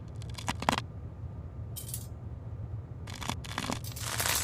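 A lighter being struck: a few sharp clicks, a brief hiss about two seconds in, more clicks, then a louder rush of noise with crackling ticks near the end as it lights.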